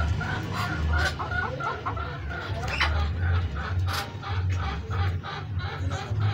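Chicken clucking: a few wavering calls at first, then a quick run of short clucks at about four or five a second, over a low rumble.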